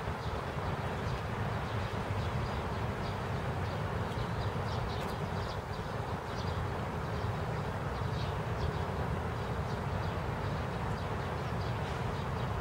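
Steady rain falling on a garden, a continuous hiss with a low rumble underneath and scattered faint high ticks.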